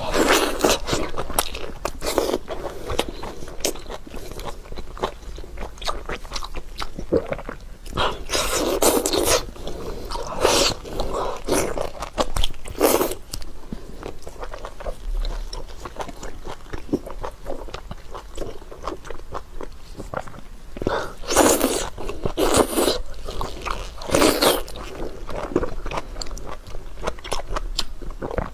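Close-up chewing and biting of fatty, oily meat, wet and irregular, with several louder bites or slurps spread through.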